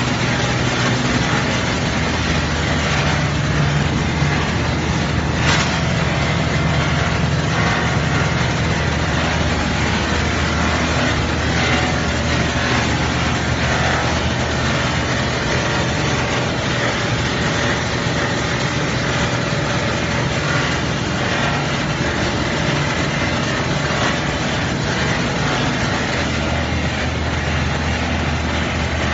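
A 2900 mm CPP cast film line running steadily: a continuous low machine hum with an even whirring of rollers and motors, and a single brief click about five seconds in.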